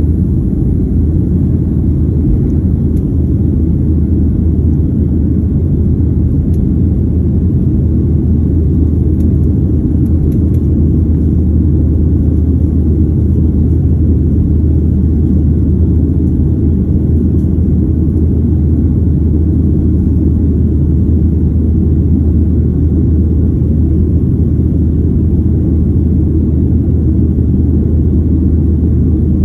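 Jet engines of a Boeing 737 at takeoff thrust as the airliner lifts off and climbs, heard inside the cabin: a loud, steady, low rumble.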